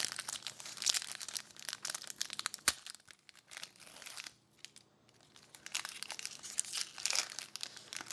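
Plastic trading card pack wrapper crinkling and crackling as it is torn open and handled, with a pause midway and one light knock.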